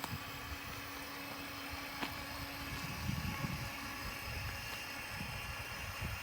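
Mighty Mule automatic gate opener's motor running with a steady hum as it swings the gate closed, stopping about two and a half seconds in. Low rumbling wind noise on the microphone throughout.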